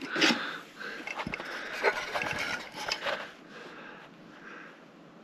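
Rustling and handling noise, with a few light knocks and clicks, as a boxed Super 8 movie camera and its paperwork are unpacked by hand; it dies down over the last couple of seconds.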